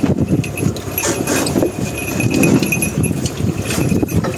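Wind rumble and boat noise on an open deck at sea, with irregular knocks and a thin intermittent high whine.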